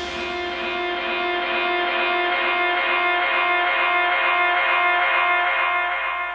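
Background music: a held chord with a violin-like sound, wavering slowly and fading out near the end.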